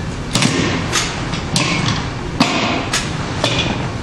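Screen re-stretching clamps being closed one after another on mesh fabric: about six sharp clacks as the clamp heads and levers are pressed down in turn.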